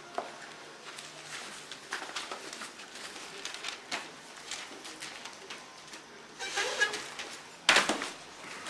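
Paper rustling and scattered small clicks from handling newspaper on a paper-covered floor, with a loud sudden rustle and thump near the end as a person drops onto the newspapers.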